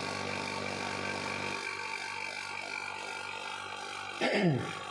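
Vacuum pump running steadily, evacuating an isolated refrigeration compressor through a gauge manifold before oil charging. A brief falling sound near the end.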